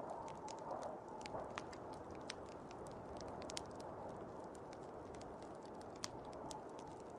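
Fire crackling, with irregular sharp pops and snaps over a steady low rushing noise.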